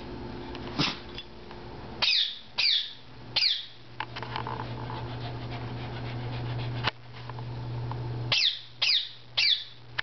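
Small long-haired dogs play-wrestling, giving short high-pitched yips that drop in pitch, three in quick succession about two seconds in and three more near the end. A low steady growl runs in between and stops abruptly about seven seconds in.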